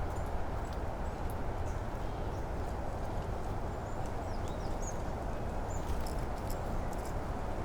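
Spring forest ambience: a steady low rushing noise, with short, faint high bird chirps scattered through it.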